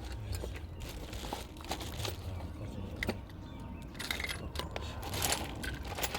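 Scattered metal clinks and knocks, several sharper ones in the second half, over a low steady rumble.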